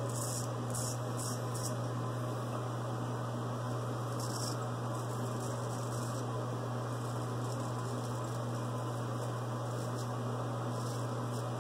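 Faint, scratchy rasps of a heavy 15/16 straight razor cutting through lathered stubble, coming in short strokes, over a steady low hum.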